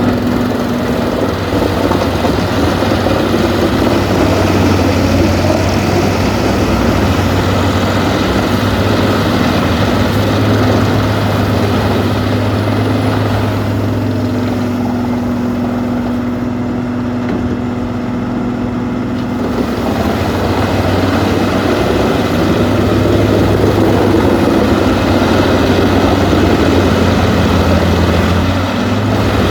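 Peterson 4310B wood chipper running: a steady, heavy diesel engine hum under dense noise from the machine. The higher noise thins out for a few seconds midway, leaving mostly the engine, then comes back.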